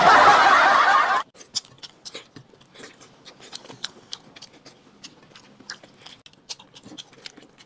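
A loud burst of noise lasts about a second. After it, someone chews and crunches snack food in close, quick, crunchy bites.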